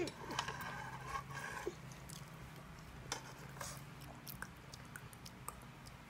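Quiet chewing with small scattered clicks, over a low steady hum.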